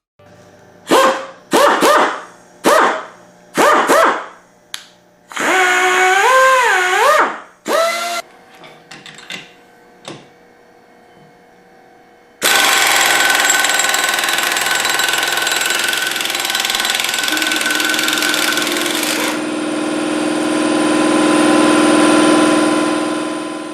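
Ingersoll Rand pneumatic impact wrench triggered in several short bursts, the air motor's pitch rising and falling with the trigger. About halfway through it is held on for roughly eleven seconds, running steadily with a whine over a loud hiss.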